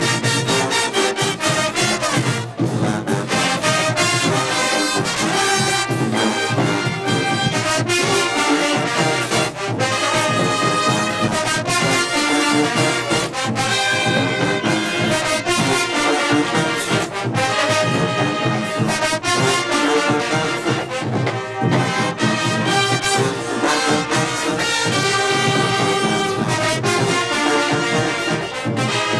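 Marching band playing loud brass music: trumpets, trombones and sousaphones over a steady drum beat.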